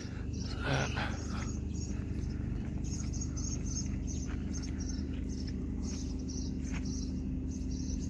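Insect chirping, small high chirps repeating several times a second from about three seconds in, over a steady low hum, with a brief scuff about a second in.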